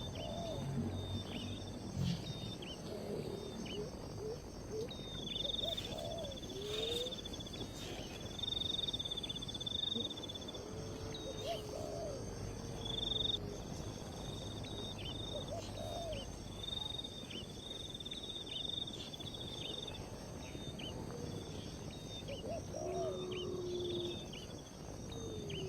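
Outdoor nature ambience: insects trilling steadily at a high pitch, with short, low whistled calls breaking in every few seconds.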